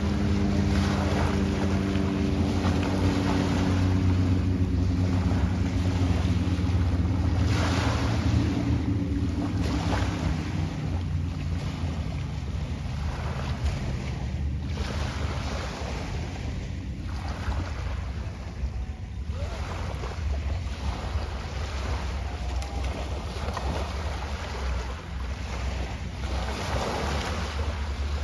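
Wind buffeting the microphone over waves washing in, in repeated swells. A boat's motor drones steadily through the first dozen seconds and fades out.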